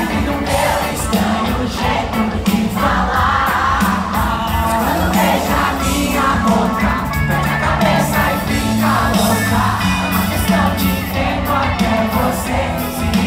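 Live pop-rock band playing loudly, with singing and the voices of a crowd mixed in, heard from among the audience.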